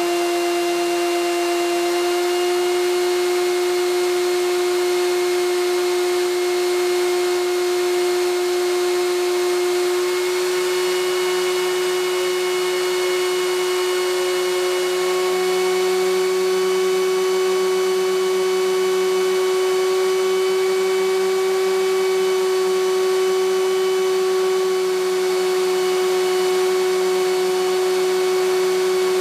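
3D-printed centrifugal compressor/fan spun by a two-pole furnace draft-inducer motor overdriven from a variable frequency drive at about 390 Hz, some 22,000 RPM, far above its rated 3600 RPM. It gives a loud, steady high whine over a rush of air, the pitch edging slightly higher in small steps.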